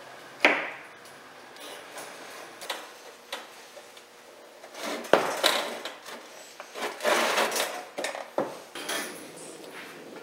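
Wire grid rattling and clinking against a sheet-metal tray as it is handled and fitted, with scattered sharp clicks. There is a loud snap about half a second in and denser clattering in the second half.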